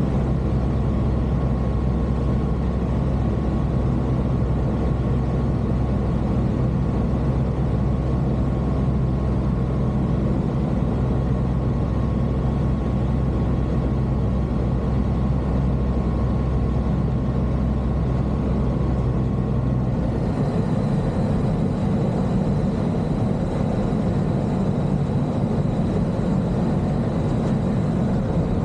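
Light aircraft's four-cylinder Rotax 912 engine running steadily, heard from on board, with a thin steady whine over it. About twenty seconds in the engine note changes and its low hum drops.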